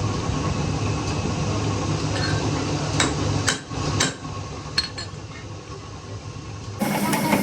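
Hammer striking metal: four or five sharp blows in the middle, over a steady low machine hum. Near the end the sound cuts abruptly to a louder steady machine noise.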